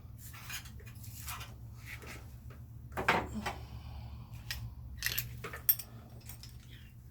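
Light metallic clinks and rattles as the timing locking pins are pulled from an engine's cams and small tools and parts are handled, with a few louder knocks about three and five seconds in, over a steady low hum.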